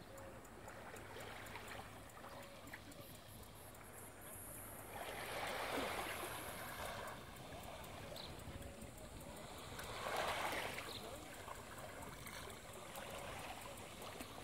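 Small waves lapping at the water's edge over pebbles, a steady gentle wash with two louder swells of surf, about five and ten seconds in.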